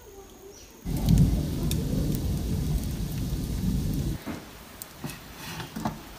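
A loud, low rumbling noise lasts about three seconds and cuts off suddenly. Then come a few light clinks and knocks as the metal pot lid is handled and lifted off.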